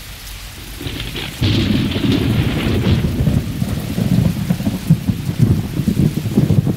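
Rumbling thunder with a hiss of rain. The rumble starts soft and grows much louder about a second and a half in, then rolls on unevenly.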